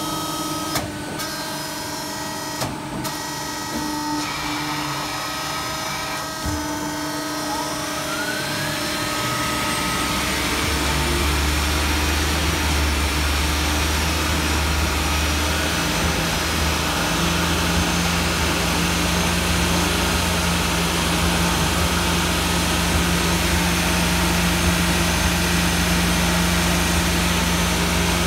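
Beaver TC-20 CNC lathe running: a couple of sharp clicks in the first few seconds, then a motor winds up in pitch about a third of the way in and settles into a steady, louder hum with a low drone.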